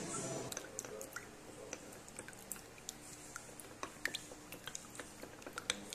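A long-handled spoon stirring wet cold-brew coffee grounds in a paper filter: irregular wet squelching with many small sharp clicks, several a second.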